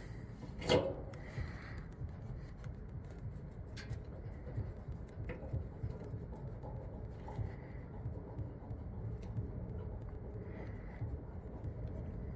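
Faint metallic rubbing and small ticks of a Schrader valve core being threaded back into an AC service port with a core removal tool, with one sharper click or knock a little under a second in.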